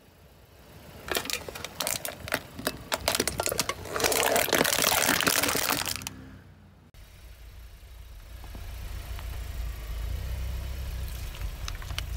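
Aluminium soda cans crushed under a car tyre: a run of sharp cracks and crinkles as the metal buckles, then about two seconds of loud, dense crunching that stops suddenly. After that, a steady low rumble of the car rolling slowly.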